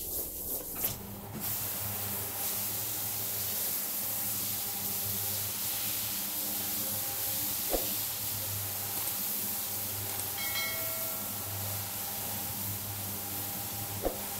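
Rotary single-disc floor scrubber running on a wet, shampooed rug: a steady motor hum under a continuous hiss of the brush working foam into the pile. It takes over after about a second of hand-brush strokes, and two sharp clicks stand out, one midway and one near the end.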